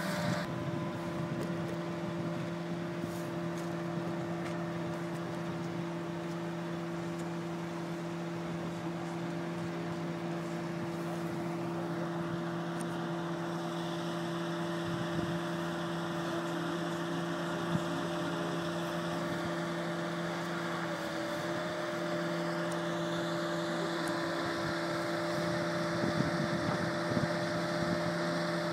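Truck-mounted hydraulic crane's engine running steadily while it winches a car out of the water, a constant unchanging hum.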